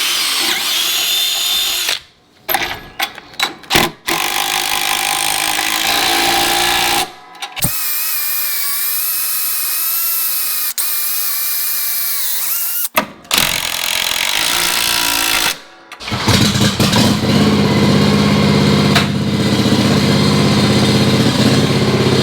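Power drill running in several separate spells, a steady motor whine that dips in pitch under load before it stops. In the last few seconds a lower, buzzier motor sound runs steadily.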